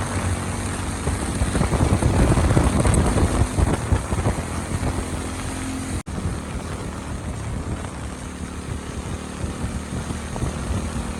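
Motorcycle running on the move, with wind rushing over the microphone. It is louder for a few seconds early in the stretch and cuts out for an instant about six seconds in.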